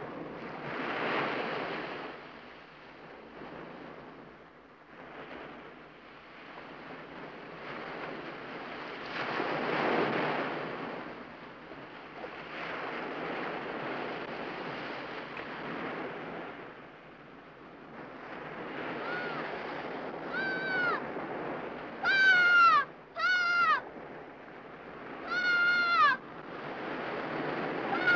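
Ocean surf breaking and washing up the beach in slow swells. In the second half, gulls cry several times, short calls that drop in pitch at the end.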